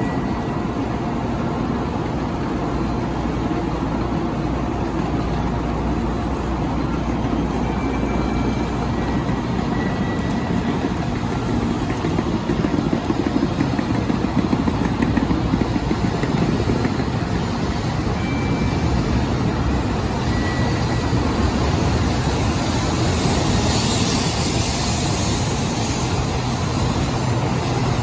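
Shinkansen bullet train pulling out and running: a steady low rumble with a wide hiss that grows brighter near the end.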